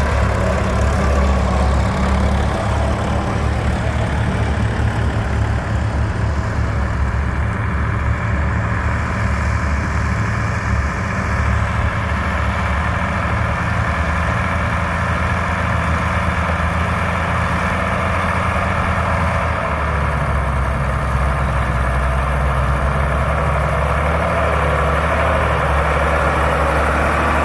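Vintage Fordson Major-based tractor diesel engine running steadily with a deep, even note, which shifts slightly about twenty seconds in.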